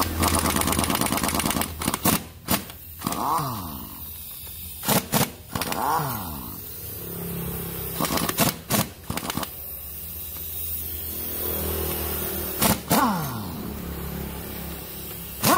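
Impact wrench hammering nuts loose on a scooter engine's cylinder head. One long rattling burst comes first, then a series of short bursts, with the tool's motor whining up and down between them.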